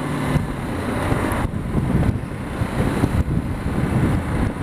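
BMW G 310 GS's single-cylinder engine running as the motorcycle rides along at town speed, mixed with wind noise on the microphone.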